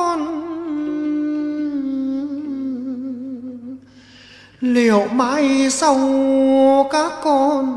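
Hát văn music: a held, wavering melody line with slides and ornaments, dipping briefly a little past the middle before a louder new phrase begins.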